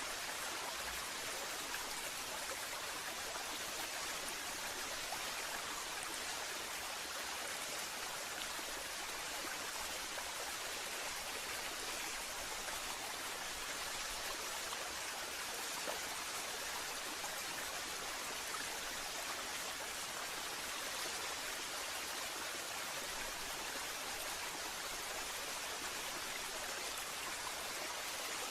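Recorded waterfall: a steady, even rush of falling water with no birdsong over it.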